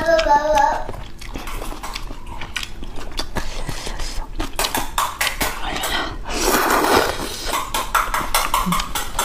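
Close-miked eating sounds: wet chewing and lip smacks as a sequence of sharp clicks, and a longer noodle slurp about two-thirds of the way through. A snatch of background singing stops about a second in.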